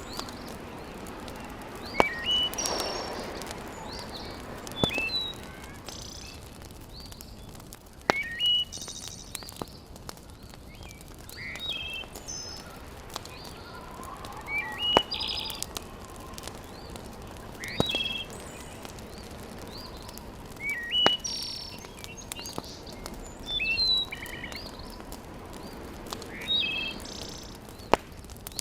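A bird sings short chirping phrases of hooked, rising notes, repeating about every three seconds. Over a faint steady background, about six sharp pops of a crackling wood fire, some at the start of a phrase, are the loudest sounds.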